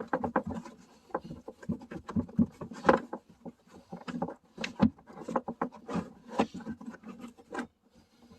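Corvette C5 trunk trim panel being pulled and worked loose by hand: irregular clicks, knocks and rubbing that stop about a second before the end.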